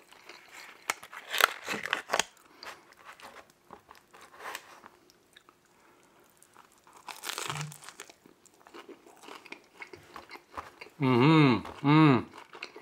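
Close-miked eating of deep-dish pizza: wet chewing and small crunchy clicks, then two short hummed "mmm"s of enjoyment near the end, each rising and falling in pitch.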